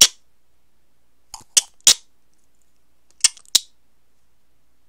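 Sharp camera-shutter clicks for mugshot pictures: one at the start, then a quick pair about one and a half seconds in and another pair about three seconds in.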